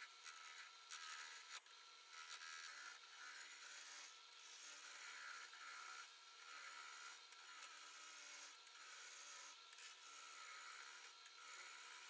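Faint, steady rasping hiss of a flat chisel shearing shavings off a spinning wooden handle blank on a wood lathe.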